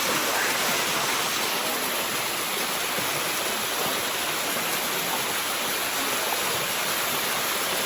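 Steady rush of water cascading over the limestone rock of Bua Tong, the "sticky" waterfall.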